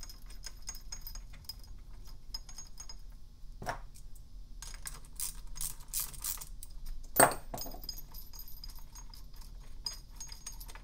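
Small metal-on-metal clinks and ticks of bolts and a socket tool being worked loose from a steel cam-locking bar on a motorcycle engine's cylinder head, with two louder knocks, about a third and two-thirds of the way through.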